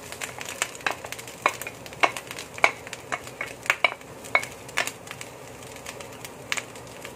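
Wooden spatula stirring in a wok, with irregular taps and knocks against the pan over a low sizzle of frying vegetables.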